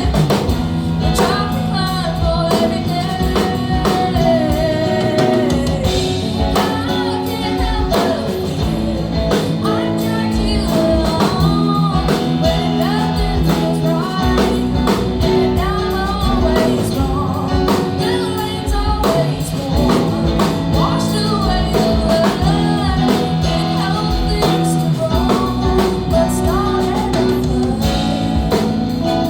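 Music: a song with a singing voice over guitar and a steady drum beat.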